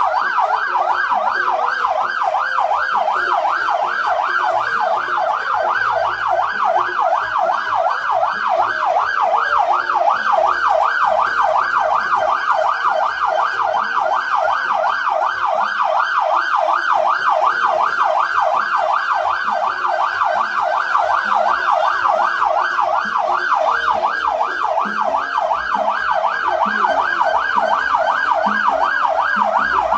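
Siren in a fast yelp, its pitch rising and falling quickly and evenly without a break.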